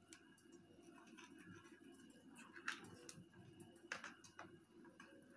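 Near silence with faint scraping and a few soft clicks, the clearest about three and four seconds in, from a table knife cutting through a crisp uthappam on a plate.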